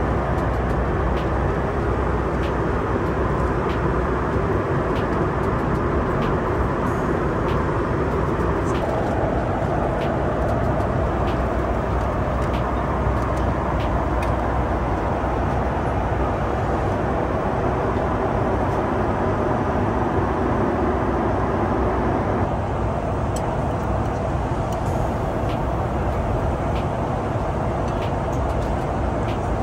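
Steady cabin noise inside a Boeing 737 MAX 8 in flight: the even rush of the engines and the airflow, with faint light clicks now and then. Its tone shifts slightly twice.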